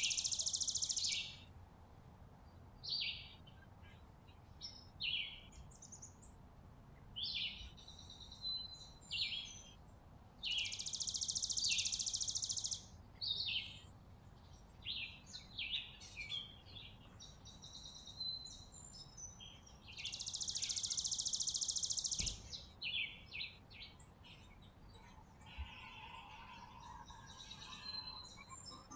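A flock of sparrows chirping at a seed feeder: scattered single chirps, broken three times by loud bursts of massed chattering, each about two to three seconds long.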